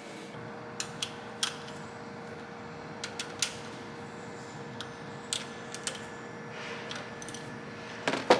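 Sparse light metallic clicks and taps of hand tools and engine parts being handled while a rocker shaft assembly is fitted to the cylinder head, over a faint steady hum. Near the end comes a quick run of clicks as a socket ratchet is worked on the rocker shaft bolts.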